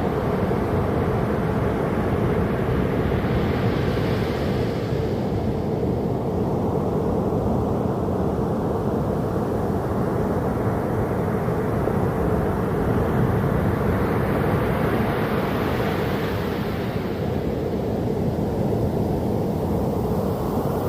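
Ocean surf: a steady low rumble of waves, with a wave washing in more brightly about four seconds in and another around sixteen seconds.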